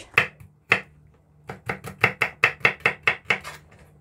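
Kitchen knife chopping garlic cloves on a wooden cutting board: two single knocks, then after a short pause a fast, even run of about six chops a second for about two seconds.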